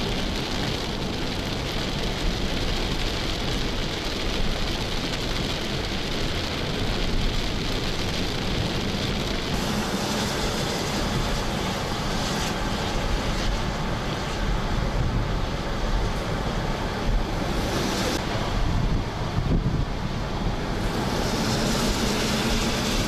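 Steady road and wind noise of a car driving on a wet highway in the rain, heard from inside the car. It is a continuous hiss of tyres on wet road and wind, with a low rumble underneath.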